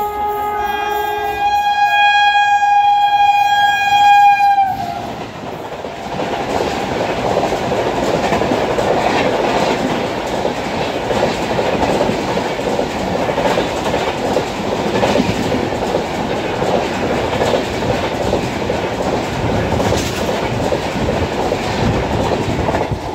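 WAP-7 electric locomotive's horn sounding one long blast of about five seconds, with two tones at first, its pitch dropping as it ends while the locomotive passes. Then the express's coaches run past at speed, a steady loud noise of wheels rolling and clattering over the rails.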